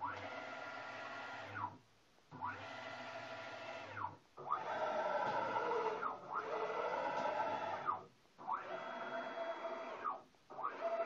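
Stepper motors of a homemade CNC mill driving the table through a series of axis moves: each move is a whine of about two seconds that rises in pitch as it speeds up and drops as it slows to a stop, with short pauses between. About six moves, the third and fourth louder than the rest.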